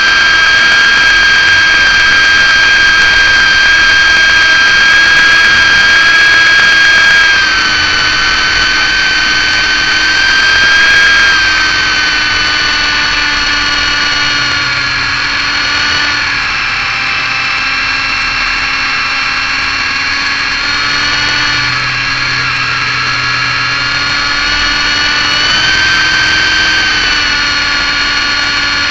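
MJX F645 RC helicopter's electric motors whining in flight, picked up close by its onboard camera. It is a steady high whine that dips slightly in pitch about a quarter of the way in, sits lower through the middle, and rises again near the end as the throttle changes.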